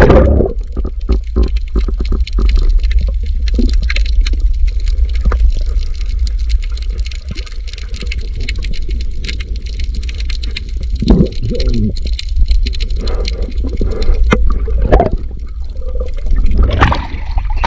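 Sound recorded underwater: a steady low rumble of moving water, with dense clicking and crackling throughout. A few louder muffled gurgles come about eleven, fifteen and seventeen seconds in.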